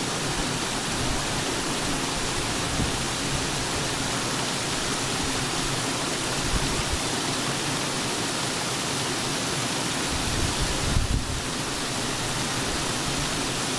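Small creek waterfall rushing steadily, an even hiss of falling water.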